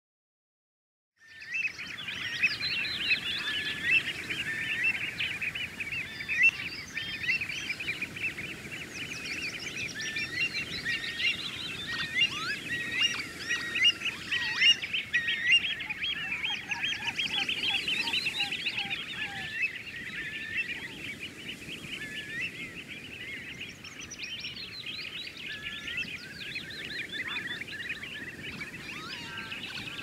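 A large flock of waterbirds calling in a dense, unbroken chorus of short overlapping calls, starting about a second in.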